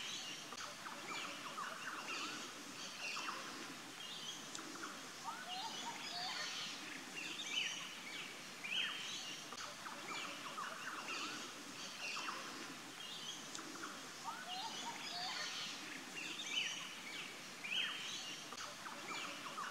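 Several birds chirping and trilling over a steady outdoor hiss, many short overlapping calls; the same stretch of calls comes round about every nine seconds.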